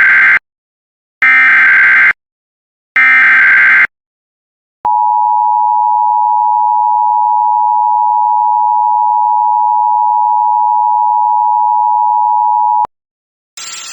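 Emergency Alert System alert tones: three short bursts of digital data tones about a second apart (the SAME header, which encodes the alert's type and area), then the steady two-tone attention signal held for about eight seconds and cut off abruptly, announcing an emergency message.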